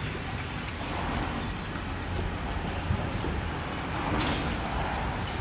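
Steady background noise of passing road traffic, with faint scattered light clicks.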